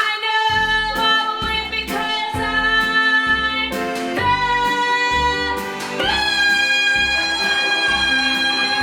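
A woman singing a song in long held notes over a backing accompaniment, badly: the judges afterwards find only 'some notes in there somewhere'. The last note is held for nearly three seconds.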